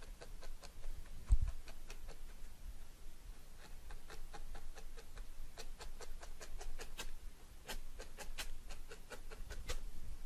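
Felting needle jabbing gently through wool roving into a foam mat: a run of light, irregular taps, with a low thump about a second and a half in.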